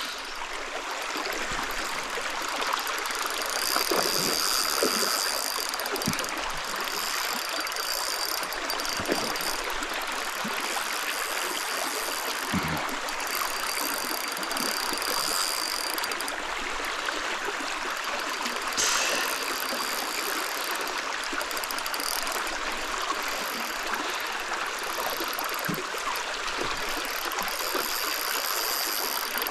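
Steady rush of flowing stream water, with a thin high-pitched buzz that comes and goes several times over it.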